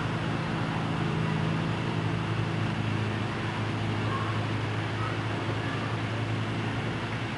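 Steady low engine-like hum, like a motor vehicle running, over a faint background hiss; its pitch drops a little about two and a half seconds in.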